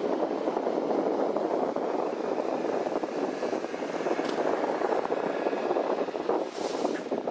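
Steady wind rushing and buffeting over the microphone on the deck of a ship underway, with a brief higher hiss near the end.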